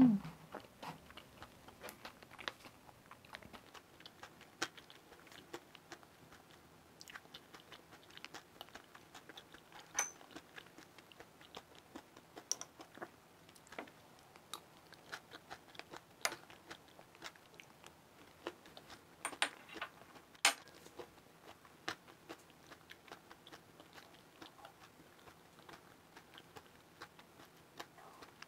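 Close-miked chewing of crisp food, with many small crackling clicks and wet mouth sounds and a few sharper crunches spread through, picked up by a clip-on microphone on the eater's chest.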